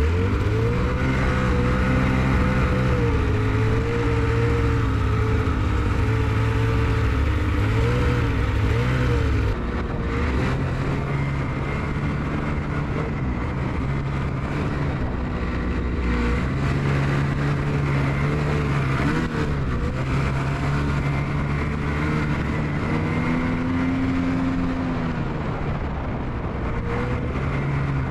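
Ski-Doo Expedition Xtreme snowmobile engine running under way on a trail, its pitch rising and falling with the throttle, heard up close from the sled.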